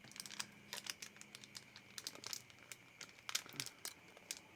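Light crinkling and rustling handling noises: a scatter of small crackles and ticks, over a faint steady hum.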